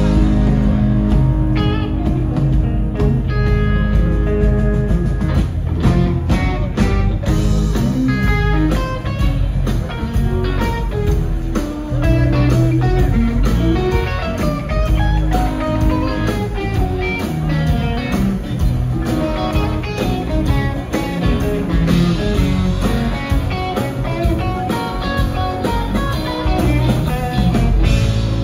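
Live rock band playing an instrumental jam: electric guitar lines over bass and drums, loud and continuous, heard from the audience.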